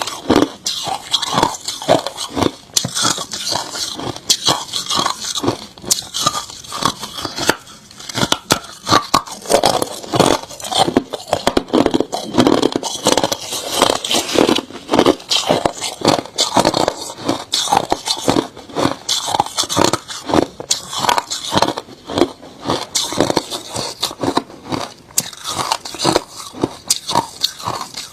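Close-up crunching and chewing of hard crushed ice in the mouth: many sharp, irregular crunches, several a second, without pause.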